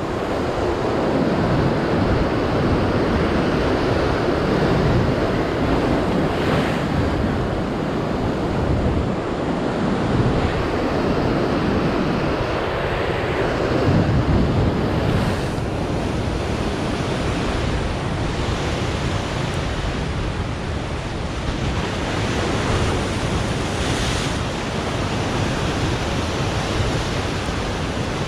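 Ocean surf breaking against a rocky lava shoreline and washing back over the rocks, with wind buffeting the microphone.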